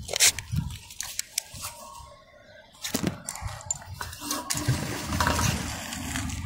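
A steel carabiner clicking and clanking as it is clipped onto the magnet-fishing rope, loudest right at the start, then a knock, and in the second half the magnet splashing into the water below as a rushing noise.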